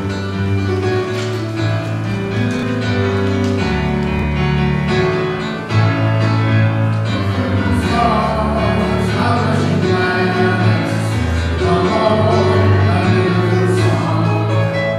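Contemporary worship song: band music with singing, growing louder about six seconds in.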